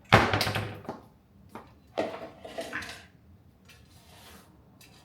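Kitchen dishes and utensils being handled: a sharp clatter at the start that fades over about a second, a short knock, then more clattering and fainter rustling, as graham cracker crumbs are moved into a mixing bowl.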